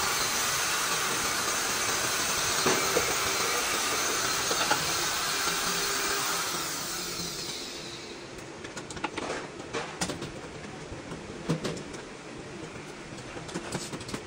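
A loud, steady rushing hiss that fades out about halfway through, leaving scattered light metallic clicks and taps as parts are handled at an open manual gearbox.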